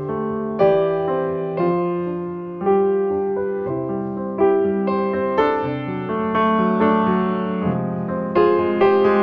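Background piano music: slow, gentle chords struck about once a second, each ringing and fading before the next.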